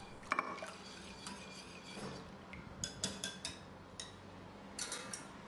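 Faint, irregular clicks and scrapes of a metal wire whisk against a glass bowl as yogurt and cold water are whisked together into ayran.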